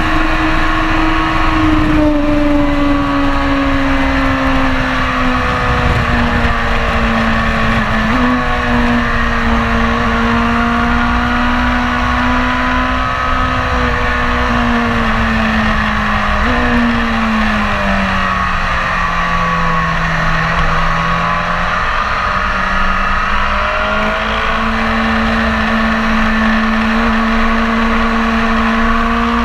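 BMW S1000RR inline-four sportbike engine heard from an onboard camera while lapping a track, mixed with wind noise. The engine note sinks slowly as the bike slows, jumps up sharply twice at downshifts, about eight and sixteen seconds in, dips lowest around twenty seconds in, then climbs again as the rider gets back on the throttle.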